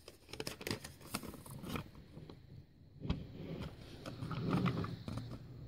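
Light handling noise from a paper instruction sheet being moved about: quick rustles and small clicks in the first couple of seconds, a sharper click about three seconds in, and a softer rustle a little later.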